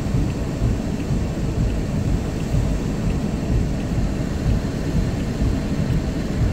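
Heavy rain falling on a car's roof and windshield, heard from inside the cabin as a steady dense low rumble with scattered drop ticks.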